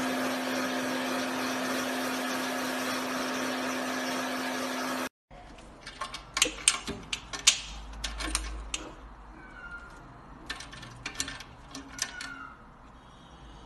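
A steady hiss with a low hum for about five seconds, cutting off abruptly. Then a cat paws at the metal latch of a wire cage door: two bouts of sharp metallic clicks and rattles.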